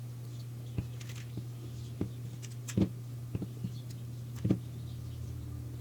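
A few short knocks and clicks of hands and a tool working at the coil of a gas suction compressor, packing a sharpened matchstick into the gap beside the coil to stop it rattling, over a steady low hum.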